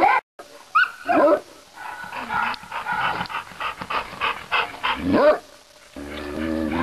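Kennelled shelter dogs barking in quick overlapping volleys, with rising-and-falling yelps about a second in and again near five seconds.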